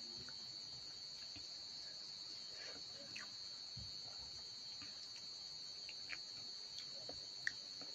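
Crickets chirring steadily at a high pitch, with faint clicks and scrapes of fingers mixing rice in a metal bowl and one sharper click near the end.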